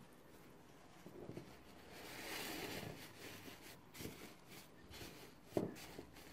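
Paper napkins rustling and crinkling as they are handled and shaped, followed by a few light taps and one sharper knock near the end.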